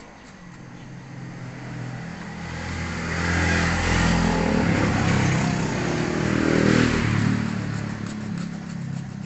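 A motor vehicle's engine passing by: it grows louder over a few seconds, is loudest in the middle and fades away near the end.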